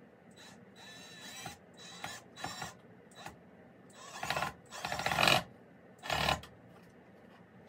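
Power drill driving screws into a wooden shelf board in about six short bursts, its motor whine rising and falling with each squeeze of the trigger. The longest and loudest burst is about five seconds in.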